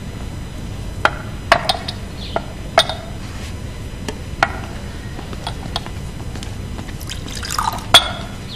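Tea being poured and teacups clinking: several sharp, ringing clinks spaced through, the loudest near the end just after a short pour.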